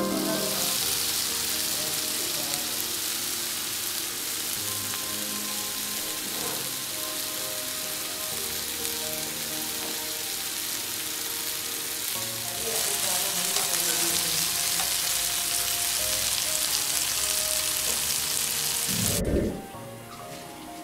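Marinated chicken thighs and chopped onion sizzling as they fry in hot oil in a frying pan. The sizzle gets louder about two-thirds of the way in and cuts off near the end.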